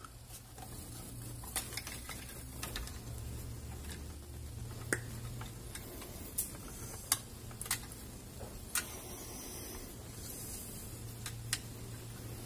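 Scattered small clicks and taps, about eight over several seconds, as hands handle wires and a plastic cable tie, over a low steady hum.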